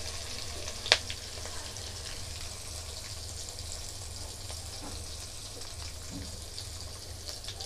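Spices sizzling in hot oil in a kadai, with ground cumin freshly added over turmeric, ginger paste and green chillies, under a low steady hum. A single sharp click sounds about a second in.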